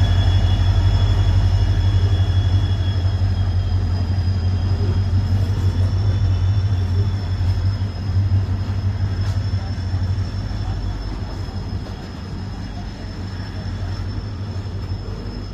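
Steady low mechanical hum with a thin high whine above it, slowly fading.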